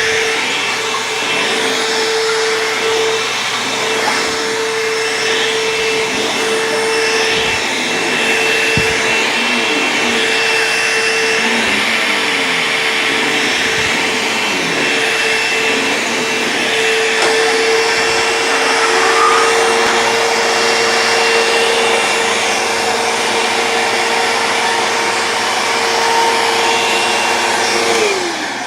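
Bissell CleanView 2 Plus bagless upright vacuum cleaner running steadily, a constant motor whine over the rush of air. Near the end it is switched off and the motor winds down, its pitch falling.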